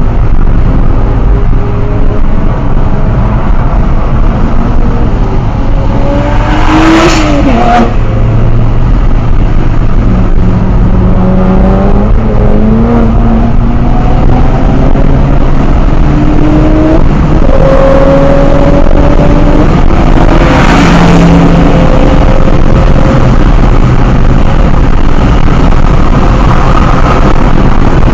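Car engine heard from inside the cabin while driving hard on a racetrack: its pitch rises and falls repeatedly with throttle and gear changes, over steady road and tyre noise. Two brief loud rushes of noise come about seven seconds in and again near twenty-one seconds.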